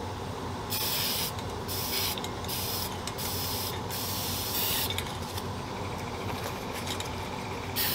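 Aerosol can of black spray paint hissing in short bursts, about six quick sprays in the first five seconds, then quieter. The paint is being spotted on as accents.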